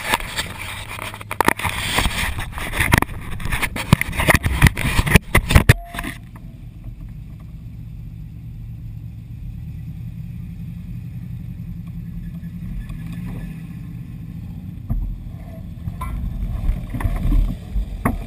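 Close rubbing, clicking and knocking of a dash-mounted camera being handled for about six seconds, then the rig's engine idling steadily, with a few heavier low thumps near the end.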